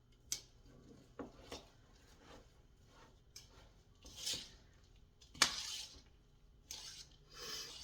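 Spoon scraping and knocking against a mixing bowl while stirring a thick oat and mashed-banana mixture, with a few short sniffs through a runny nose.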